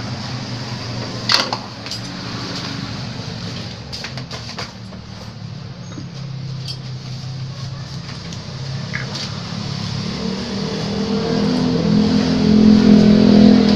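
Motorcycle engine idling steadily, then revved up from about ten seconds in, loudest near the end. A sharp click about a second in.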